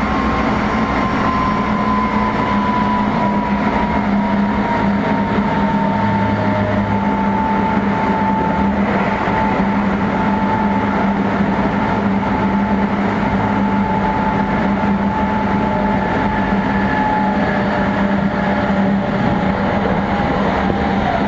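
Running sound inside a Meitetsu 3500 series electric train car with Toyo Denki GTO-VVVF traction gear. A high motor whine slides slowly down in pitch as the train loses speed, then holds, over a steady low hum and the rumble of wheels on rail.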